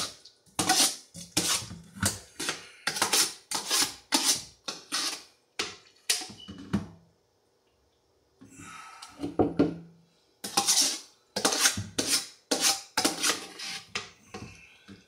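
A large spoon scraping and scooping chunks of cut pineapple, mango and papaya out of a cooking pot, in quick strokes about two a second. The strokes pause for a few seconds in the middle, with a softer rub, then resume as the pot is tipped up on edge.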